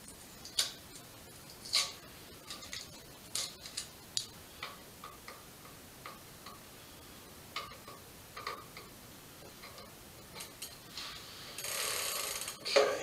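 Scattered small clicks and scratches at an irregular pace, from fingers picking at and peeling a stuck decal on an e-bike's crank arm. Near the end there is a second-long rustling scrape, then a sharper knock.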